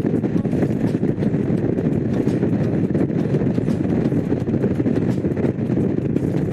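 Honda CX500's V-twin engine running at a steady speed on the road, with no revving up or down.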